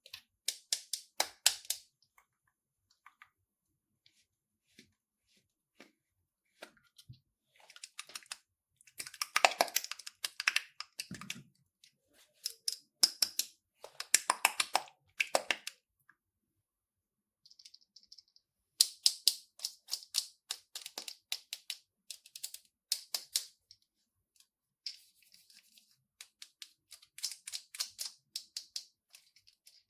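Slime being worked by hand, giving runs of quick, crisp clicks and pops, several a second, in bursts of a few seconds with short pauses between.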